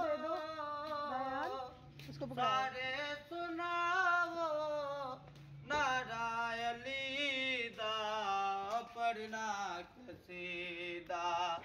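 A male voice unaccompanied, singing a hamd-naat (Islamic devotional recitation) in four long, ornamented phrases with short pauses for breath between them.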